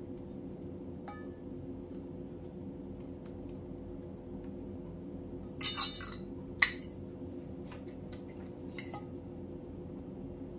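A metal fork clinking and scraping against a plate as it presses roasted eggplant flat: a short cluster of clinks a little past halfway, one sharp clink just after, and a faint one near the end, over a steady low hum.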